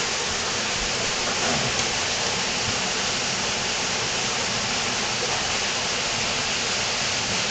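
Steady rushing of falling water from an underground cave waterfall, an even noise with no breaks.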